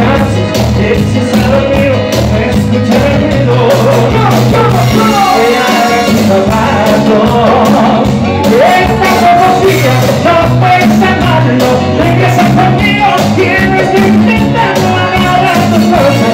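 Live Latin band playing loudly, with a lead singer's voice over a steady beat of bass, drum kit and congas.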